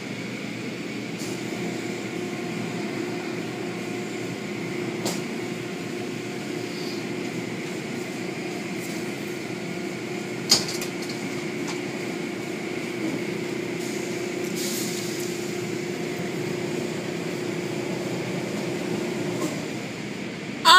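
Automatic tunnel car wash machinery running: a steady whir and hiss of spinning cloth brushes and spray over a car, with a steady hum that stops shortly before the end. A single sharp click about halfway through.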